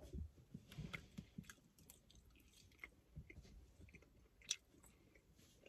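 Faint chewing of a dried fish snack, with small scattered mouth clicks and one sharper click about four and a half seconds in.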